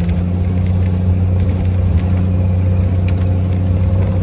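Off-road vehicle's engine running with a steady, even low drone, no revving or change in pitch.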